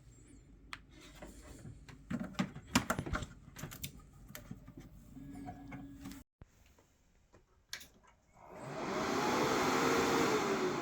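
Scattered clicks and knocks, then a Dell XPS 720 desktop's cooling fans spinning up loudly about two-thirds of the way in as the PC powers on. It is a rushing whir whose pitch climbs and then eases slightly near the end.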